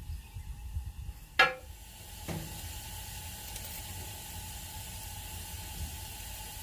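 Food sizzling in a hot pan, with a sharp clank about one and a half seconds in and a lighter knock a second later, then a steady sizzling hiss.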